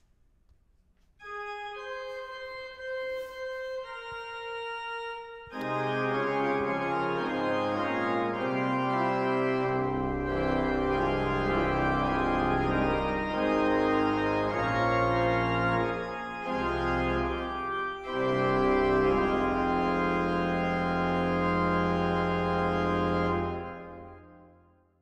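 Organ playing alone, with no singing: a few held notes enter about a second in, the full organ with deep bass notes joins at about five and a half seconds, and the final chord fades away near the end.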